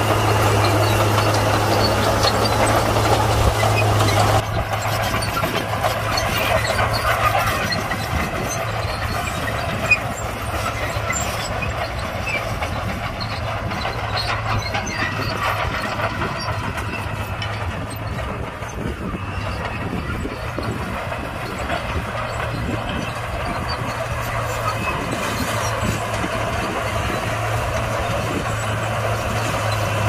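Heavy earthmoving machinery running: a steady low diesel engine hum under a rough mechanical clatter, louder for the first four seconds and then quieter, with one sharp knock about ten seconds in.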